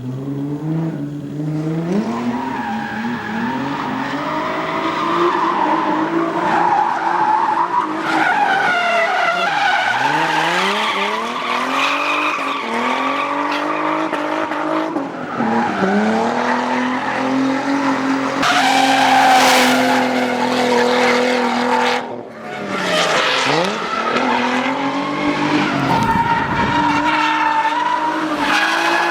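Twin-turbo Nissan 350Z drift car at full throttle, the engine revs repeatedly climbing and falling sharply, over the screech of tyres sliding.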